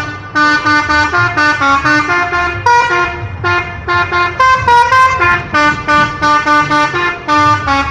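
Indonesian bus 'telolet' horn, a set of tuned air horns, playing a quick melody of short notes, several a second, in phrases with brief gaps. A low rumble sits underneath.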